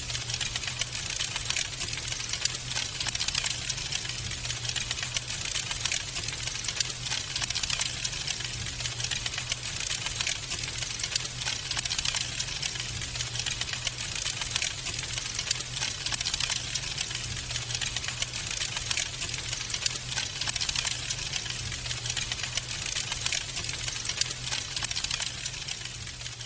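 Wood fire crackling in a fireplace: a dense, irregular stream of small snaps and pops, with a few louder pops, over a steady low hum.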